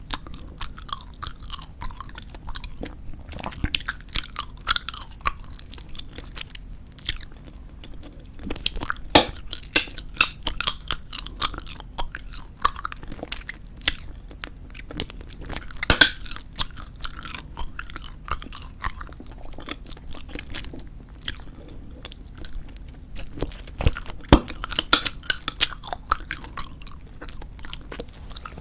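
Chewing of soft squeezable tube bubblegum: steady wet, sticky chewing with many sharp clicks and snaps, coming in denser flurries about nine, sixteen and twenty-five seconds in.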